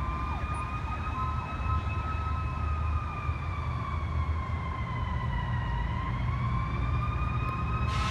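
Fire engine siren wailing, its pitch sliding slowly down and then back up, over a low traffic rumble. A broad hiss joins near the end.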